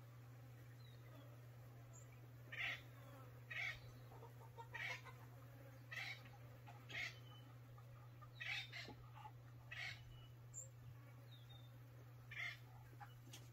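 Faint chickens calling, short separate calls coming every second or so, over a steady low hum.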